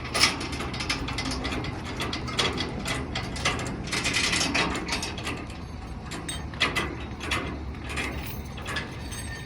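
Rapid ratchet-like mechanical clicking, densest in the middle, over a low steady hum.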